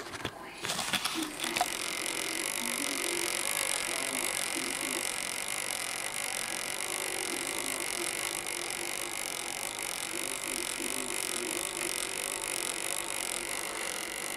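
A few clicks and knocks in the first second or two, then the fans of an ASUS DirectCU II graphics card cooler running in a PC: a steady whirring hiss with a wavering hum beneath.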